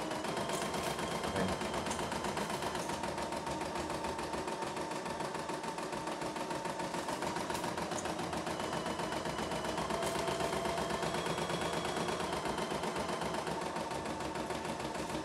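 CNY E960 computerized embroidery machine stitching a design: the needle runs at a steady fast rhythm over a constant motor whine, with a higher whine that comes in twice, for a couple of seconds near the start and for several seconds past the middle.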